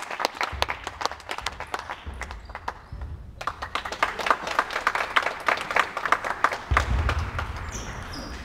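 Spectators clapping, many sharp claps with a short lull about three seconds in. Table tennis ball hits join in near the end as a rally begins.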